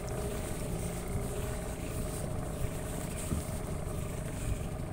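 Small fishing boat's motor running steadily underway, a constant hum with a steady tone and a few small knocks.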